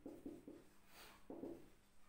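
Faint marker strokes on a whiteboard: a handful of short rubbing strokes as lines are drawn around a written result, in two quick groups, the second about a second and a quarter in.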